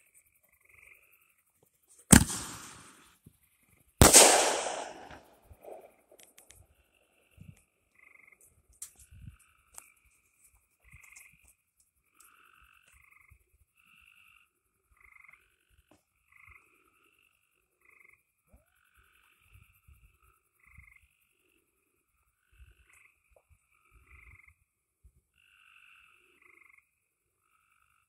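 Firework mortar shell from a Brothers American Chief kit firing: a sharp bang from the tube about two seconds in, then a louder burst with a long rolling tail about two seconds later as the shell breaks in the air. Frogs croak over and over throughout.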